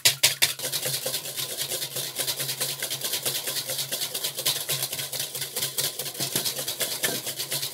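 Wire balloon whisk beating egg whites by hand in a copper bowl: quick, even strokes, about seven a second, the wires scraping and clicking against the metal as the whites firm up toward stiff peaks.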